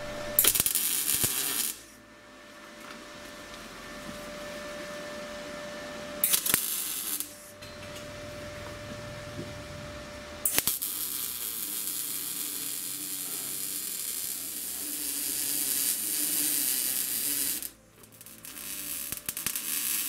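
MIG welder arc crackling as steel box section is welded: two short welds, the first near the start and the second at about six seconds, then a long continuous weld of about seven seconds, a brief stop, and another weld running near the end.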